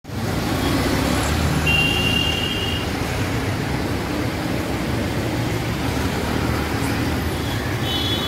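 Busy street traffic: a steady rumble of engines and tyres. A vehicle horn sounds for about a second, once about two seconds in and again near the end.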